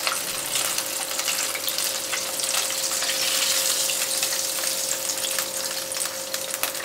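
Hot oil sizzling and crackling steadily around breaded chicken pieces deep-frying in a pan, as the finished crisp pieces are lifted out with tongs.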